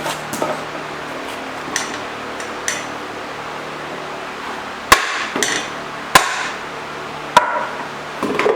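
Hammer blows on the rusted-in-place tailstock of a Monarch 10EE lathe, working it loose: a few light taps, then three hard ringing metallic strikes about a second apart in the second half, and a quick run of smaller knocks at the end.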